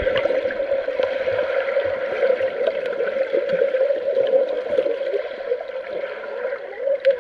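Pool water heard with the microphone submerged: muffled bubbling and churning from swimmers' movements, over a steady low hum, with scattered small clicks.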